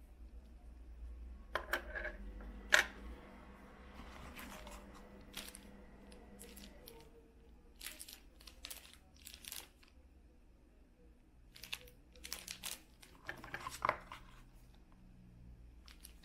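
Plastic packaging crinkling and rustling as small wrapped packets and cards from a sunglasses box are handled, in scattered bursts with light taps and clicks; a single sharp click about three seconds in is the loudest sound.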